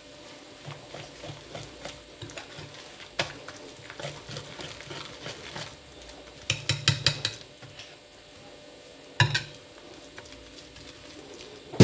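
A utensil stirring thick semolina batter in a mixing bowl: soft wet scraping with scattered clicks against the bowl, a quick run of clinks about six and a half seconds in, and a sharp knock a little after nine seconds.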